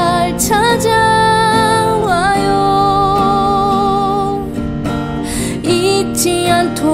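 Background music: a song with acoustic guitar under a long-held melody line that wavers and slides between notes.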